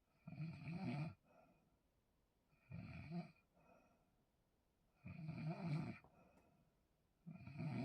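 A person snoring heavily in sleep. A rough snore comes about every two and a half seconds, four times, and each is followed by a short, softer breath.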